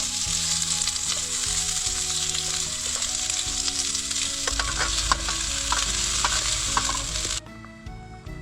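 Food stir-frying in hot oil: a steady sizzle with the scrape and tap of a spatula stirring, which cuts off suddenly near the end. Background music plays underneath.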